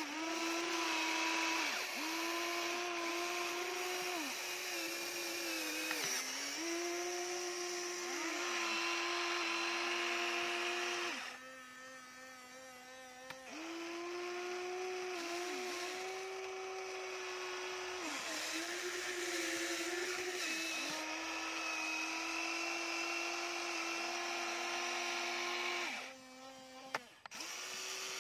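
Radio-controlled Huina toy excavator's small electric motors whining as the boom, arm and bucket move, the pitch dipping and shifting each time a motion starts, stops or changes. Twice, about eleven seconds in and again near the end, the whine drops to a lower, quieter tone for a couple of seconds.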